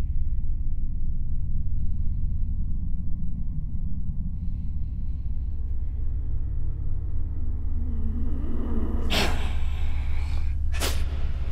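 A deep, steady rumbling drone, then a man's harsh, breathy gasps: a loud one about nine seconds in and a shorter one near the end.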